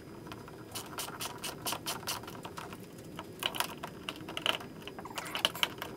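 Phillips screwdriver and socket wrench tightening a screw and nut through a plastic micro anchor mount on a kayak deck: irregular clicking in small clusters.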